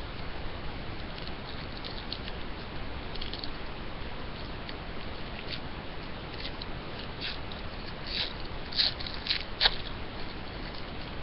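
Trading card packaging and cards being handled: light crinkling and small clicks as a pack of hockey cards is opened and the cards are slid out. It grows busier about eight seconds in, over a steady background hiss.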